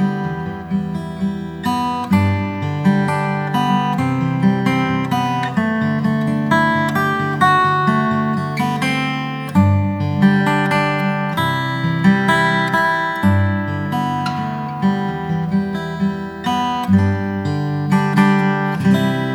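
Background music: strummed acoustic guitar playing a steady chord progression.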